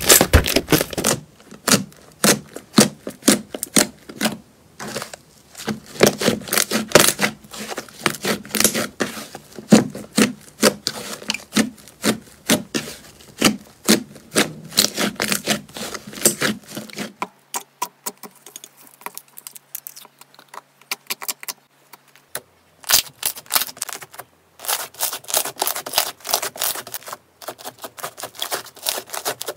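Slime squeezed, kneaded and poked by hands, making a quick, irregular run of squishy clicks and pops. The popping thins out and goes quieter for a few seconds past the middle, then picks up again.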